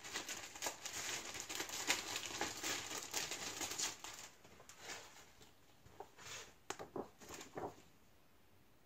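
Plastic wrapping crinkling as it is pulled off an instruction booklet, then a few softer, scattered paper rustles as the pages are handled.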